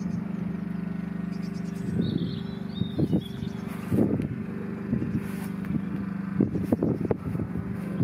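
An engine idling steadily, with irregular low thumps on the microphone through the second half. A bird chirps briefly about two seconds in.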